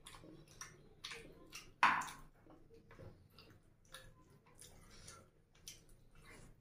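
Wet mouth sounds of chewing and lip smacks, with fingers squishing rice and curry on a plate: a run of short irregular clicks, and one sharper smack about two seconds in.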